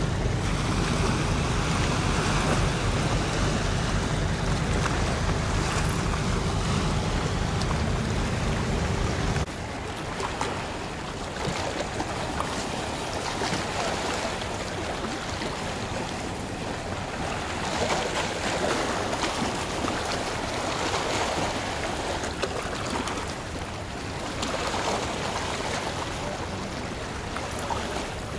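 Wind buffeting the microphone over water, with the low steady hum of a passing ship's engine. About nine seconds in, the sound cuts abruptly to quieter wind and water noise.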